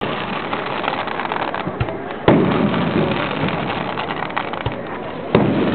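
Aerial fireworks shells bursting: two loud booms, one a little over two seconds in and another near the end, each with a long rumbling tail. Between them runs a steady noisy background of small crackles.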